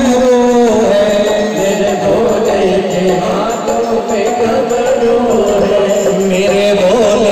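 Devotional Hindu bhajan singing with music, the voice holding long notes that waver slightly.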